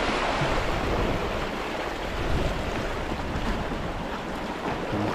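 Sea waves washing steadily against the shore, with wind on the microphone.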